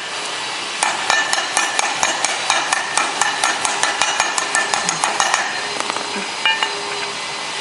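A quick run of sharp metallic clicks with a slight ring, about six a second, lasting around four and a half seconds and then giving way to a few single clicks, as metal parts and a screw are worked while fitting a gearbox.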